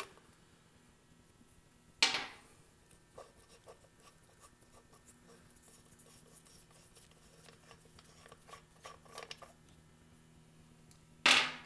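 Metal valve adjustment caps on a motorcycle cylinder head being handled and unscrewed by hand: faint small clicks and scrapes, with a sharp metallic clink about two seconds in and another short clatter near the end.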